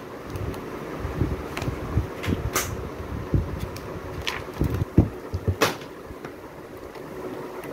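Picture books handled in a cardboard box: covers flipped open and books lifted and set down, giving irregular soft knocks and a few sharp paper clicks.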